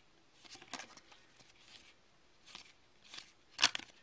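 Hockey trading cards being flipped through by hand: scattered soft slides and flicks of card stock against card stock, with a sharper cluster of flicks about three and a half seconds in.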